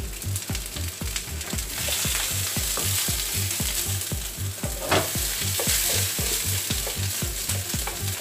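Courgette chunks sizzling in oil in a frying pan while they are turned with a wooden spatula. The sizzle grows stronger about two seconds in, with small clicks throughout and one sharper knock about five seconds in.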